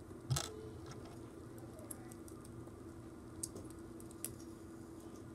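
Lego bricks being handled and pressed together: a few light, scattered plastic clicks, with a sharper knock near the start, over a faint steady hum.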